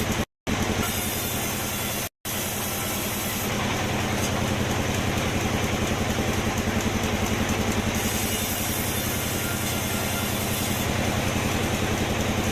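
Sawmill machinery running steadily: an engine's even, rhythmic low throb with a hiss over it. The sound cuts out completely twice, briefly, in the first two seconds or so.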